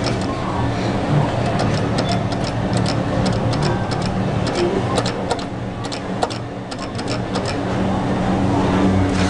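Claw machine running: a steady motor hum with a string of quick clicks, thickest in the middle of the stretch.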